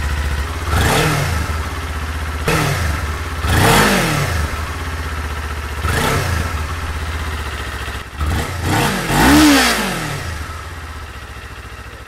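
Stock exhaust of a 2019 Kawasaki Z400's parallel-twin engine, cold, idling in neutral and blipped four times, each rev rising and falling back to idle. The last blip is the loudest. Heard close at the tailpipe.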